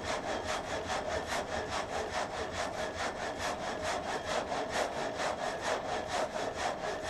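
Saw cutting through wood in a fast, even rasping rhythm of about five strokes a second, over a steady hum.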